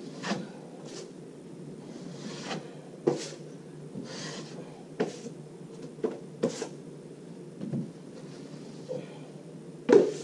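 Broad knife spreading joint compound over plasterboard joints for the finish coat: irregular scraping swishes of the blade on the board, with sharp taps and clacks of the knife between strokes, the loudest clack near the end.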